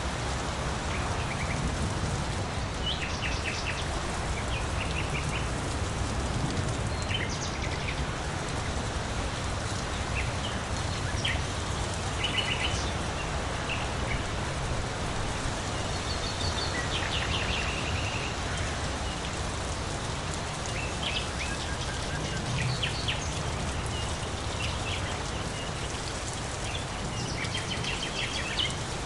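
Steady rain falling, with birds giving short, quick chirping calls every second or two over the hiss of the rain.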